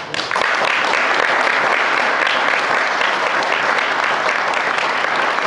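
Audience applauding loudly, starting all at once and going on steadily.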